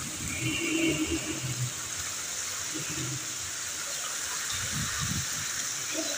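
Heavy rain pouring steadily onto a flat concrete rooftop, an even hiss of downpour.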